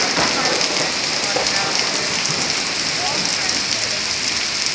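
Heavy rain pouring down in a steady hiss during a thunderstorm.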